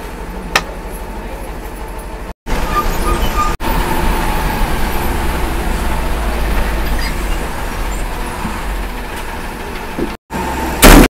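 Inside a moving MSRTC bus: steady engine and road rumble, broken off abruptly several times. A short, loud burst comes near the end.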